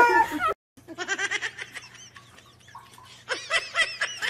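A cat yowling loudly with its mouth wide open, cut off abruptly about half a second in. Then comes a run of short, high, squeaky vocal calls, growing louder and more laugh-like near the end.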